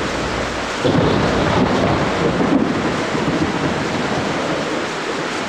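A storm: steady heavy rain and wind, with thunder rolling in suddenly about a second in and rumbling on.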